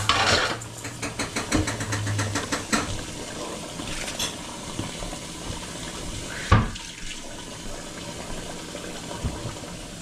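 Kitchen work noises over a steady hiss: rapid clinking and clatter of dishes and utensils in the first few seconds, then one sharp knock about six and a half seconds in.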